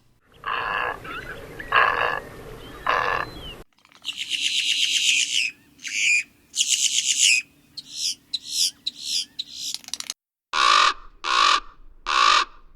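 Recorded birds giving rough, harsh calls in three separate examples. First come three harsh calls, then a quick run of higher, scratchy calls, then four evenly spaced caw-like calls near the end.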